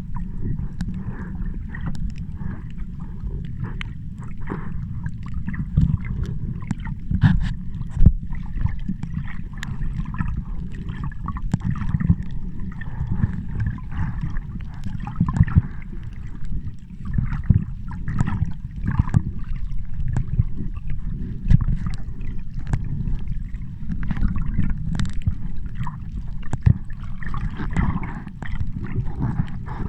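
Sea water sloshing and gurgling over a steady low rumble, with frequent sharp clicks scattered throughout.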